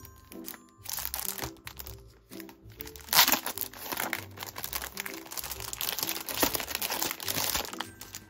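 Clear plastic packaging sleeve crinkling as a spiral notebook is slid out of it, getting loudest from about three seconds in. Background music plays underneath.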